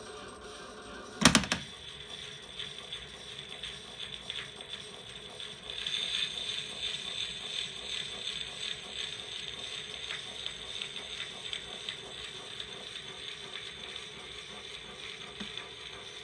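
Edison Home phonograph's spring motor and gearing running, with a light mechanical ticking and one sharp clack about a second in. From about six seconds the hiss of the blue cylinder record's surface comes in as the reproducer's stylus rides the groove before the music starts.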